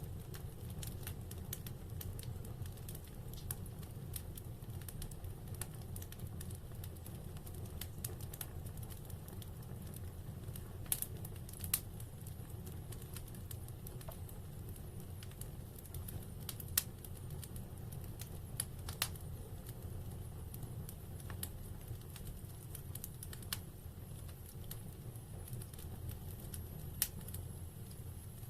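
Wood fire burning in a fireplace, crackling with scattered sharp pops over a steady low rumble; a handful of louder snaps stand out.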